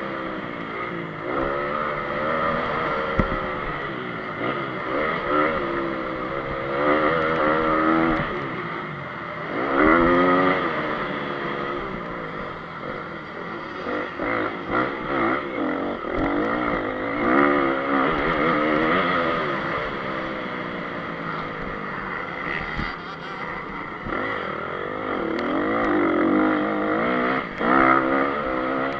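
Honda CRF250 single-cylinder four-stroke motocross engine under hard riding, its pitch climbing and dropping again and again as the throttle opens and closes. A few short knocks from the bike over the rough track.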